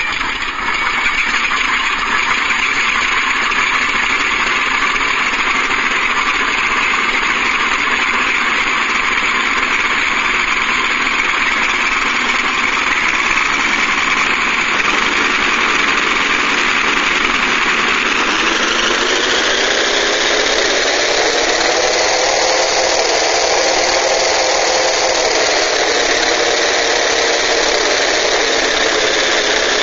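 Recorded engine sound played back by an RC model sound unit (MrRCSound V4). It runs steadily and loud, then changes about two-thirds of the way through, its pitch wavering up and down.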